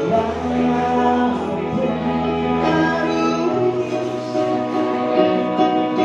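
Live band performing a song: a woman singing into a microphone over bass guitar, electric guitar and keyboard, with long held notes.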